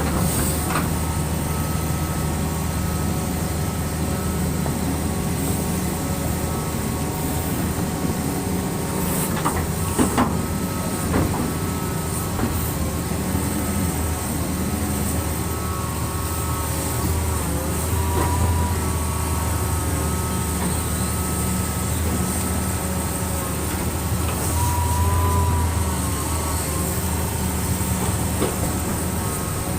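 Excavator's diesel engine running steadily under load, with a few sharp knocks about ten seconds in.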